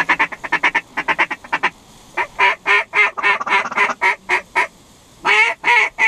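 Mallard duck call blown close by, in quick runs of short quacks, then a slower string of quacks, and a few louder, drawn-out quacks near the end.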